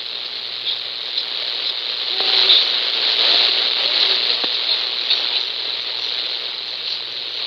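Shortwave static: a steady hiss from a Retekess V115 receiver tuned to an AM broadcast on 15305 kHz, swelling between about two and four seconds in. Faint traces of the broadcast programme sit underneath.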